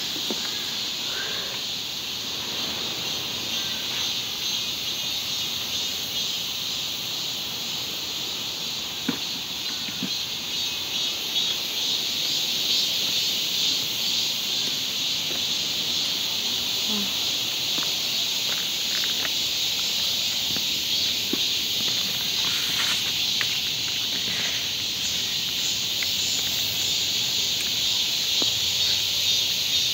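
A steady, high-pitched chorus of insects, which swells a little after about twelve seconds, with a few faint clicks near the middle.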